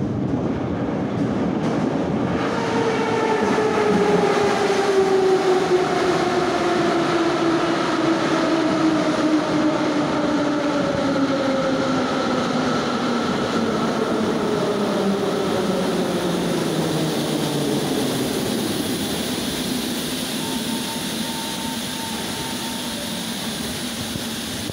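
A Moscow metro 81-717/714 'Nomernoy' train pulls into the station. Loud wheel-and-rail rumble runs under the traction-drive whine, which falls steadily in pitch as the train slows to a stop. A short steady tone sounds near the end.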